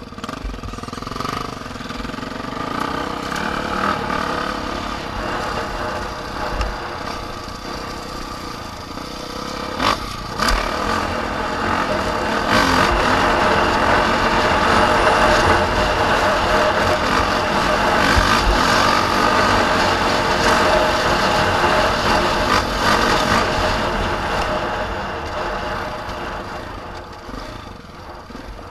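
Motorcycle engine running under way, getting louder over the first dozen seconds, holding steady, then easing off near the end. There is a brief sharp knock about ten seconds in.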